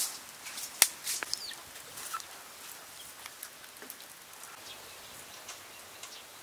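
Sharp crackling pops from the fire under a spit-roasting duck, loudest in the first two seconds. They give way to a quieter outdoor hiss with a few faint bird calls.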